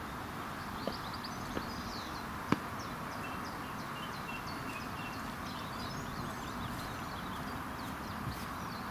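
Outdoor pond-side ambience: a steady background hiss with small birds chirping in short high notes, and three faint clicks in the first few seconds, the third the sharpest.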